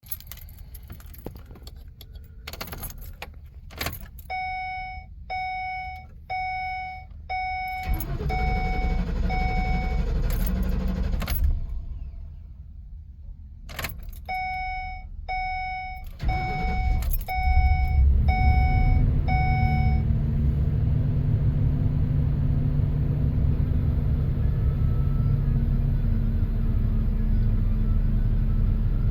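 Ford E-250 van's warning chime repeating while the key is worked, and the engine cranking for about three seconds without starting, a few seconds in. After a pause and more chimes, it cranks again, catches and settles into a steady idle.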